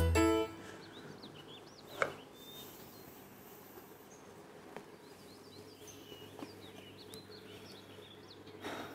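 Quiet room ambience with faint birds chirping throughout, and a single sharp click about two seconds in.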